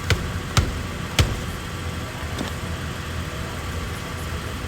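A vehicle engine idling steadily, with three sharp clicks in the first second and a half and a fainter one a little later.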